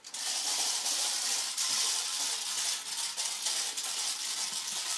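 Toy popper car being pushed along over carpet, its popper mechanism making a dense, continuous rapid popping rattle.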